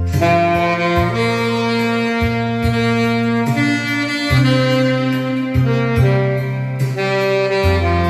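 Saxophone playing a slow melody of long held notes over a recorded backing track with a low bass line and a soft beat.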